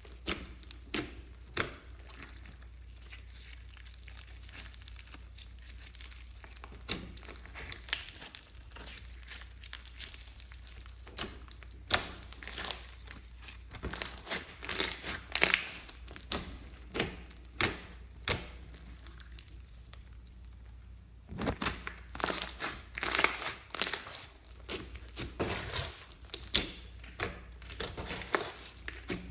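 Slime being squeezed and stretched by hand, making irregular bursts of sharp crackling and popping clicks, with quieter pauses between handfuls.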